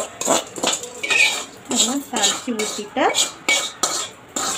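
Metal spoon scraping and knocking against the inside of a steel kadai in repeated strokes, roughly two a second, some with a short squeal. The fried tempering is being scraped out of the pan into the chutney.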